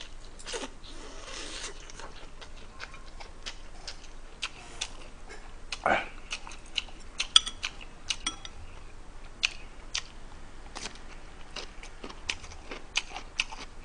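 A person eating at the microphone: chewing and mouth sounds, with many short clicks of metal chopsticks and spoon against the dishes. There is a brief hissy stretch about a second in and a louder single sound about six seconds in.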